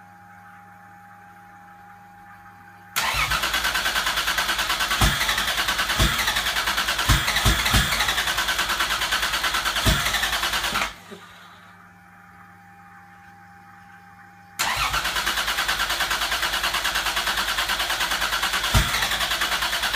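Toyota 2JZ inline-six turning over on the starter in two long cranks, about eight seconds and then about six, with a few sharp pops that never catch into running. It is a no-start: the engine is getting fuel and some ignition but won't fire, which the owner suspects comes from the igniter wiring or the ECU. In the pause between the cranks, a faint steady hum from the electric fuel pump.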